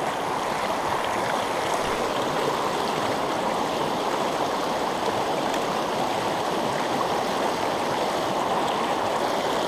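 River water rushing over rocks in shallow rapids: a steady, unbroken rush.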